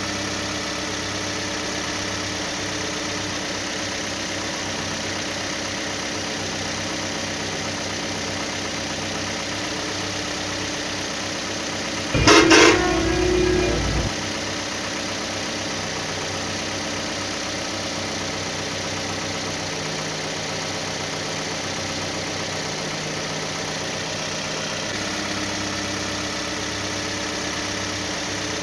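Steady engine idling sound, even and unchanging. About twelve seconds in, a loud vehicle horn blast lasts about two seconds.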